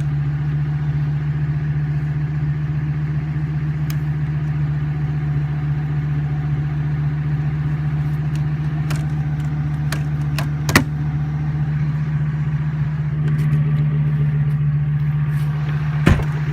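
A V10 pickup truck engine running steadily at low speed. It picks up slightly about two-thirds of the way through, and two sharp knocks come through, one about the middle and one near the end.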